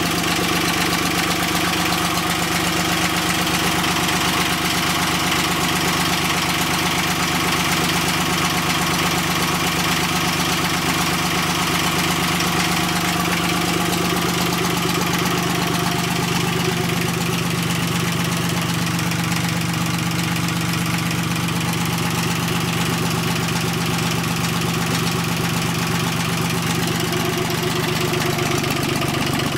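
Yanmar 3T72HA three-cylinder diesel tractor engine running steadily near its lowest governed speed, with a slight change in its note about halfway through.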